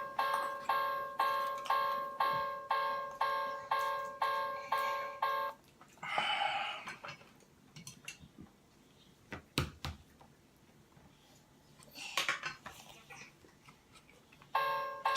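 Toy railroad crossing's electronic warning bell ringing its kan-kan chime, about two strikes a second, stopping about five and a half seconds in. After a quieter stretch with a couple of sharp knocks and brief rustling, the crossing bell starts ringing again near the end.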